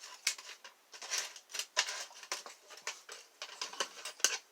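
Small handmade metal lock picks clicking and rattling as they are handled, an irregular string of light ticks, several a second.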